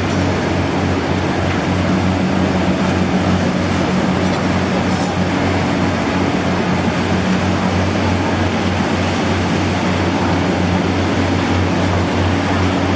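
Steady low drone of a boat's engine running under way, with a constant rushing noise over it.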